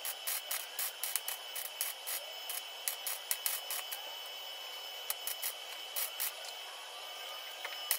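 A welder tacking a thin sheet-steel repair panel in short bursts of crackling, several quick bursts in clusters, with a pause about six seconds in. A steady high tone runs underneath.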